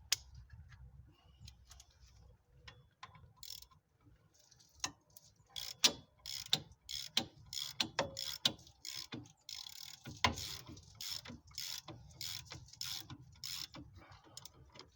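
A 1/2-inch drive Pittsburgh Professional Series ratchet clicking in quick runs as it is worked back and forth to back out the 15 mm caliper bracket bolts, which turn out looser than expected. The clicking is sparse for the first few seconds and then comes in rapid bursts through most of the rest.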